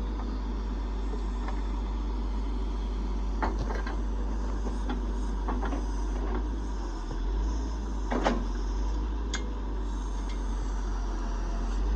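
Log truck's diesel engine running steadily at a held working RPM to power the self-loader while it lifts the trailer. A few sharp metal clanks sound about three and a half seconds in, and twice more past eight seconds.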